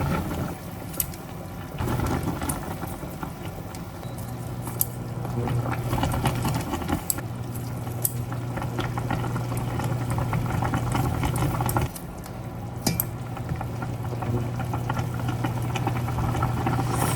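Food simmering in a pan, bubbling under a steady low hum, with scattered sharp clicks.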